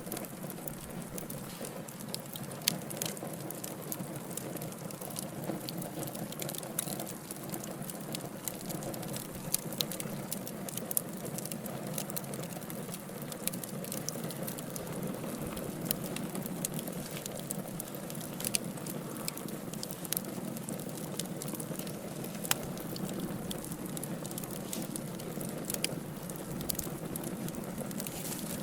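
Wood fire burning in a fireplace: a steady low hiss and rumble of flames with frequent irregular crackles and pops from the burning logs.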